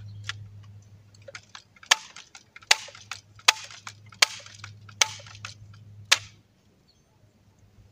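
Barra 1866 lever-action BB gun being handled and its lever worked: about six sharp clicks, roughly three-quarters of a second apart, over a steady low hum.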